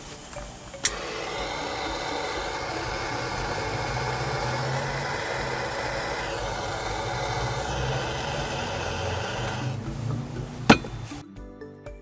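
Butane torch lighter clicks alight, then its jet flame hisses steadily for about nine seconds while lighting tea lights. The hiss cuts off, and a second sharp click follows shortly after.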